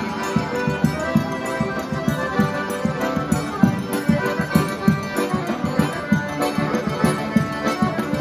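A group of piano accordions playing a lively traditional tune together in full chords, with a steady low beat pulsing underneath.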